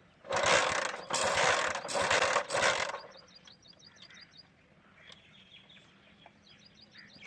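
A CD70-type single-cylinder motorcycle engine being kicked over with its kick-starter: four quick, loud, rattling cranking strokes in about three seconds, spinning the engine so the spark plug sparks. After that there is only a faint, regular high ticking.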